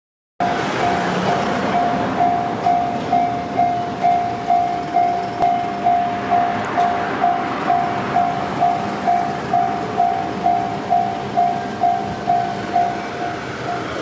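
Japanese railway level-crossing warning alarm sounding its repeated ringing tone, about two strikes a second. It grows a little fainter near the end.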